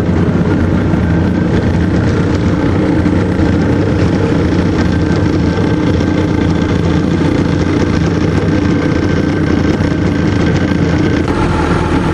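Small boat's outboard motor running steadily under way, a constant engine drone over the rush of water.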